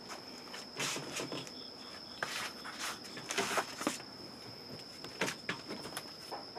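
Irregular short scuffing and rustling noises, clustered about two to four seconds in, over a steady high-pitched insect-like trill.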